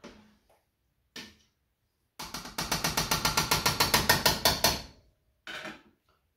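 A spoon stirring fast in a large stainless steel stockpot, striking the pot's sides in a quick rattling run of clicks for about three seconds. Single knocks come about a second in and again near the end.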